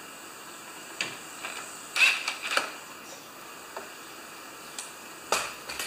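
Scattered clicks and light knocks of hand work with a tool in a lawn tractor's engine bay, about six in all. The sharpest come about two seconds in and near the end.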